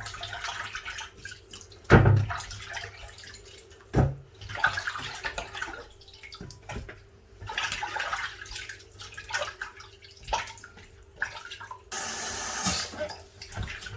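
Water sloshing and splashing as raw fish is washed by hand in a bowl of water, with three sharp knocks about two seconds apart in the first few seconds. Near the end there is a steady rush of water lasting about a second.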